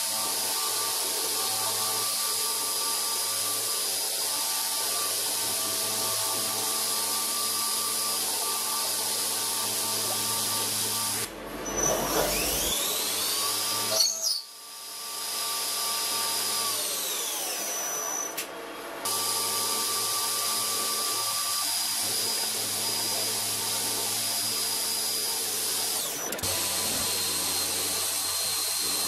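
CNC milling machine's spindle and end mill cutting aluminium, a steady machining noise with a high whine. Around the middle the steady sound breaks off and its pitch sweeps up, then back down, over several seconds before the steady running resumes.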